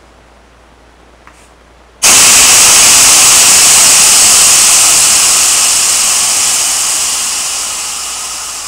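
Compressed gas rushing out at a paintball tank's fill connection from a large gas cylinder: a sudden, very loud hiss about two seconds in that slowly fades away.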